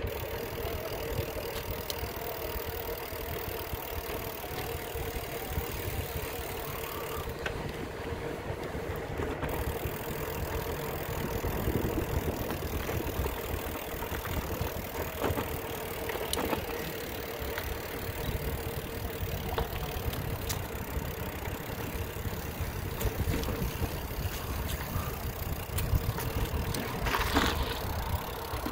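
Steady low mechanical hum with one thin tone held throughout, typical of an engine or motor running. A brief higher-pitched sound comes near the end.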